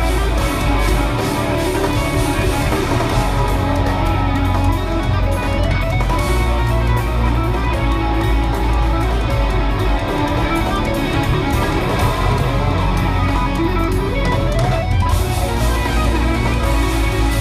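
Live progressive metal band playing: loud, dense electric guitars over heavy bass and drums, as heard through a phone-type recording in a concert hall.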